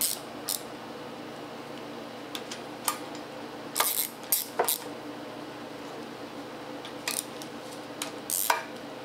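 Scattered metallic clicks and clinks of a ratchet wrench and loose hardware while intake manifold bolts are snugged down lightly in a crisscross pattern, with a low steady hum beneath.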